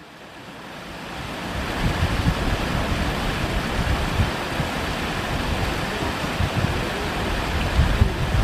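Steady rushing of river water with wind buffeting the microphone in gusts, fading in over the first two seconds.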